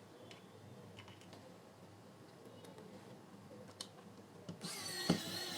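Small screws being driven back into a plastic speaker housing, heard as faint scattered clicks and taps. Near the end comes a louder whirring stretch of about a second and a half with a wavering high whine, and a sharp click partway through it.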